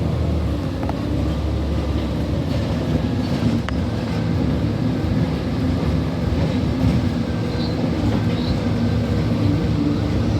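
City transit bus running and driving, a steady low rumble with a few faint clicks.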